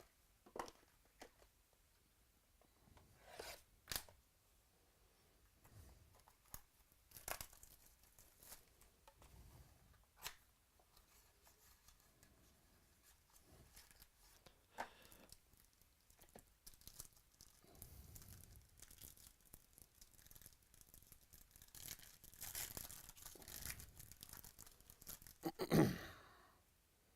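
Trading card box and pack wrappers torn open by hand: scattered short rips and crinkles, with a longer stretch of tearing and rustling near the end.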